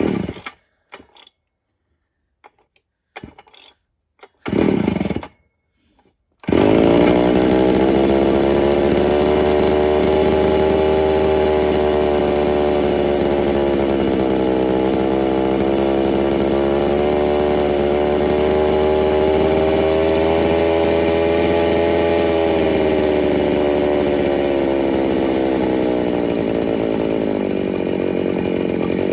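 Dayton 4Z251 chainsaw (a rebranded Poulan 3400) with its small two-stroke engine: a few short sounds from the pull-starter, then the engine catches about six and a half seconds in and runs steadily, its pitch wavering slowly and settling a little lower near the end. The owner takes its running for the sign of an air leak.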